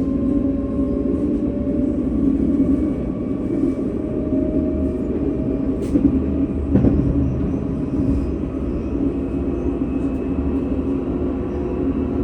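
A tram running along its line: a steady rumble with motor whines that slowly shift in pitch, and two sharp knocks from the running gear about halfway through.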